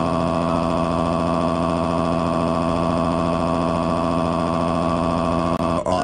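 Cartoon burp sound effect: one long, rough belch at a steady pitch, with a brief break near the end before another starts.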